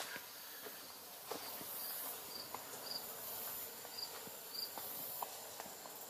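Insects trilling in a faint, high-pitched drone that swells and fades, with four short high chirps in two pairs. Faint footsteps tick along underneath.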